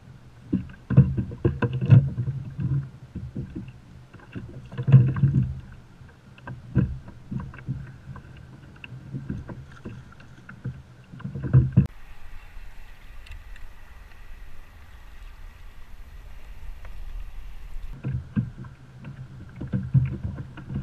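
Irregular knocks and thumps on a plastic sit-on-top kayak as a ray is handled and unhooked on board, with water sloshing at the hull. Around the middle there is a quieter, steady stretch, and then the knocking starts again near the end.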